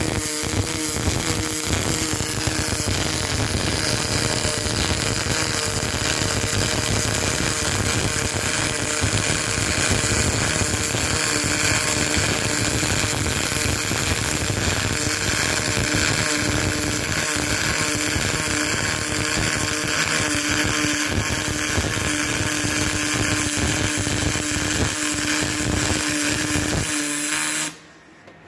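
MIG welding arc on aluminium: a steady, continuous crackling hiss with a faint steady hum beneath it, one long bead, cutting off suddenly near the end as the arc is broken.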